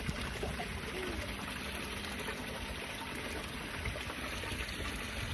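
Steady outdoor background noise: an even hiss that stays at one level throughout.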